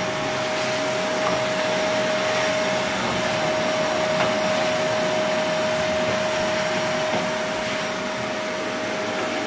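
Vacuum cleaner running steadily, its motor giving a constant whine over a rushing hiss.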